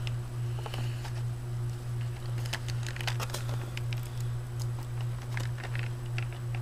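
Light scattered clicks and crinkles of a scale model's packaging and tie-downs being handled, over a steady low hum.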